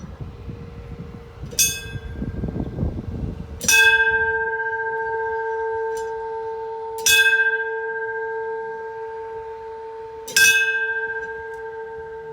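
A hanging metal bell struck four times, about three seconds apart, the first strike lighter than the rest. Each strike sounds a bright clang that rings on in a long, steady, slowly fading hum.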